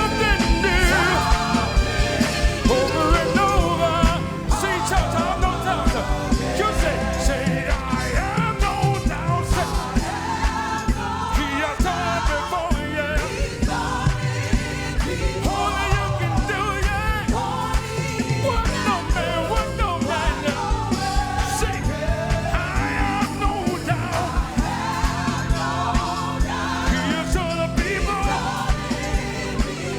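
Live gospel praise singing with a full band: singers over keyboard, bass and drums with a steady beat.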